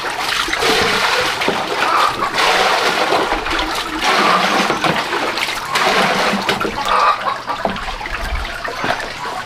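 Water pouring and splashing steadily as it is scooped and poured into a plastic basin.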